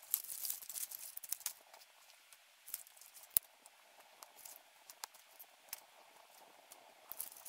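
Small fire of dry twigs catching and crackling, a dense run of crackles at first, then scattered pops with one sharp snap about three and a half seconds in.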